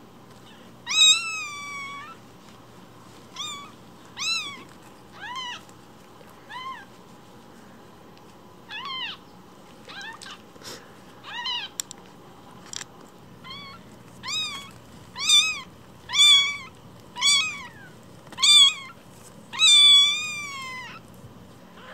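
Newborn kitten, about one week old, mewing over and over in thin, high-pitched cries that rise and fall in pitch. The cries come more often and louder in the second half, the last one drawn out.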